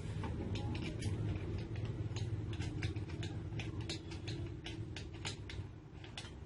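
Irregular light clicks and taps of small metal parts being handled and fitted as a chainsaw attachment is mounted onto an angle grinder, over a steady low hum.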